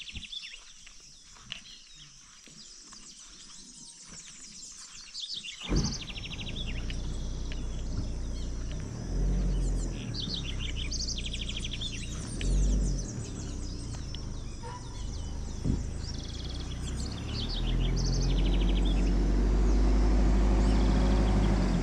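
Several birds calling, short high chirps and rapid trills repeated again and again. From about six seconds in, a low rumble rises beneath them and swells near the end.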